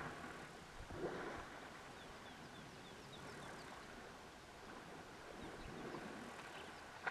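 African elephants wading and swimming in a dam, with water sloshing and a louder splash about a second in. A bird gives a run of short, high chirps in the middle, over a low rumble.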